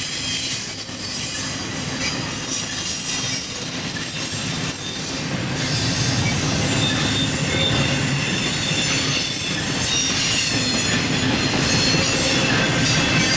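Intermodal stack train's cars rolling past at speed: steady wheel-on-rail rumble with thin, high-pitched wheel squeal, brightest in the first five seconds.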